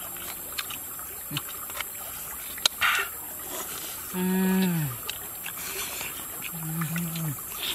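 People eating with spoons: small clicks of spoon and mouth sounds, one sharp click about two and a half seconds in, and two short closed-mouth hums of a person's voice, the first falling in pitch, over a steady background hiss.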